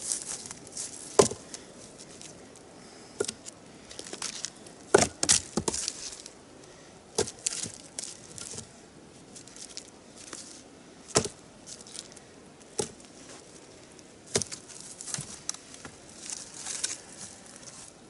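Sawn firewood logs knocking against each other as they are set down and stacked on a woodpile: sharp wooden knocks every second or two, the loudest about a second in and about five seconds in. Crunching footsteps on snow and frozen leaf litter are heard between the knocks.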